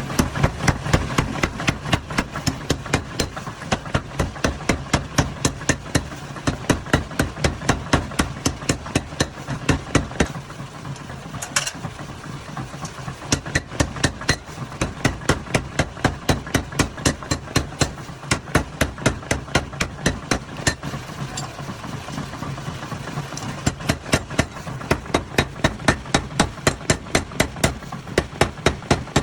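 Rapid, regular hammer blows on metal, about three to four strikes a second, over a steady low hum, while a chisel is being forged.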